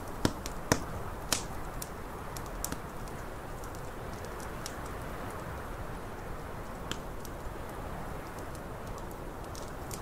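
Wood fire crackling in a fireplace, with three loud pops in the first second and a half and scattered small snaps after, over a steady low rush of snowstorm wind.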